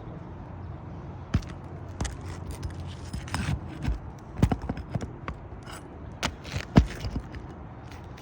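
Irregular knocks, clicks and scrapes of hand work on an asphalt shingle roof as a wind-damaged shingle is pried loose and pulled out, with the loudest knock about seven seconds in.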